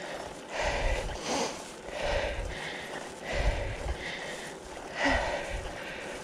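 A cyclist breathing hard and laboured close to the microphone, a loud breath about every second or so, with air blowing on the mic. The rider is in the middle of an asthma flare-up.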